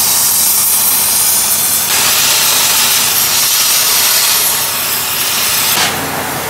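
A gas cutting torch hisses steadily as it cuts through the steel engine mounting of a CAT D8 bulldozer. It grows harsher about two seconds in, and the hiss stops near the end.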